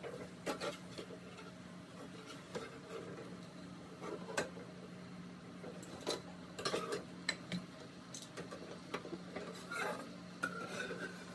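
Kitchen utensils and dishes handled: scattered clinks and knocks with brief scraping, over a steady low hum.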